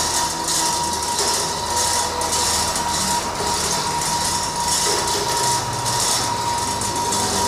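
Stone crusher machine running, with a steady mechanical hum, a thin steady whine, and a rattling clatter that pulses about once or twice a second.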